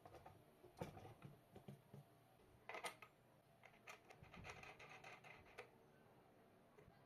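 Faint handling sounds: scattered knocks and a short scrape about three seconds in, then a run of small metallic clicks as a washer and nut are fitted onto a bolt on the side of an upside-down electric hand planer.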